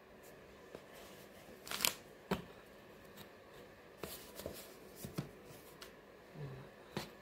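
Folded socks and their cardboard box being handled: scattered light rustles and sharp clicks, the loudest a short rustle about two seconds in.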